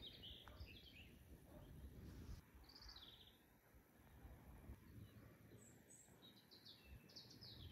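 Near silence outdoors, with a few faint, distant bird chirps over a low background rumble.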